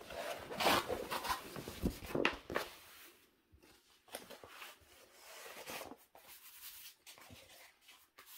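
A diamond painting canvas covered with plastic protective film is handled and rustles loudly for the first two or three seconds. After that a hand rubs over the film in quieter, on-and-off strokes.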